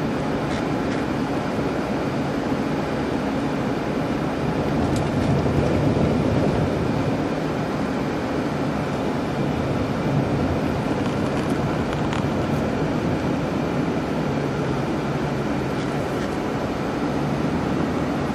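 Steady road noise inside a moving car's cabin: engine and tyres on the road, swelling slightly about five seconds in.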